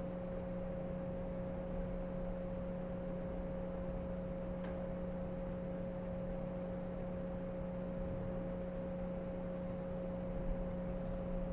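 Samsung R32 air source heat pump outdoor unit running at part load, not yet at full output: a steady fan and compressor hum with two constant tones, one low and one higher, slightly echoey.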